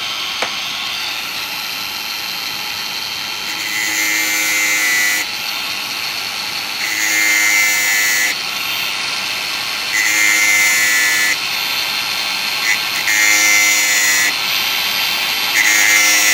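Makita DGA504 cordless angle grinder running with a steady high whine. Its 115 mm stainless-steel cutting disc grinds against the chainsaw chain's cutter teeth five times, each pass about a second and a half, roughly every three seconds, sharpening the chain.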